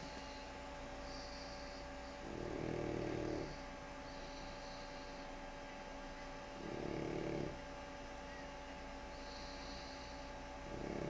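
A sleeping pug snoring: three low snores about four seconds apart, with a softer, airy hiss of breath between them.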